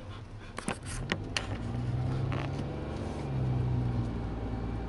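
Car heard from inside the cabin: a few sharp clicks and creaks about a second in, then a steady low engine hum that grows louder as the car drives on.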